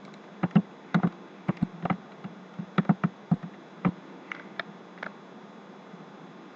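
A dozen or so short, irregular clicks of a computer mouse and keyboard, bunched in the first five seconds, the last few fainter.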